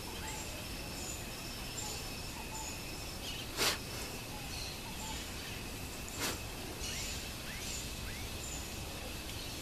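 Outdoor ambience of birds and insects: a steady high insect buzz, repeated short high chirps and short falling call notes. Two sharp clicks stand out, one about three and a half seconds in and another about six seconds in.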